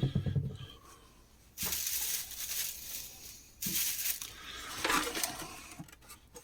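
Metal and plastic parts of a mini fridge being handled while it is taken apart: a few knocks and clinks, and two longer scraping rattles near the middle.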